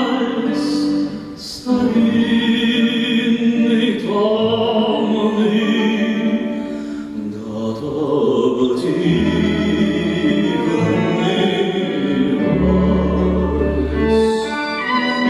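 Male voice singing a slow romance in waltz time, accompanied by a small ensemble of violin, cello, double bass and guitar, with the double bass playing deep notes in the second half.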